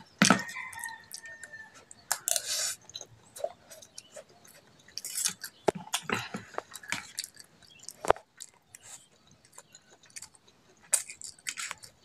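Close-up chewing of fried instant noodles and rice, mixed with scattered clinks and scrapes of a metal spoon and fork on the plate.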